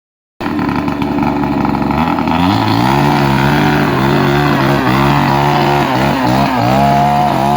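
Two-stroke chainsaw engine running, revving up about two seconds in, its pitch then sagging and recovering several times as the chain is loaded in the cut.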